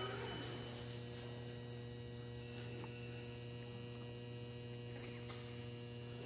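Steady electrical mains hum, a constant low drone with fixed overtones and no change in pitch or level.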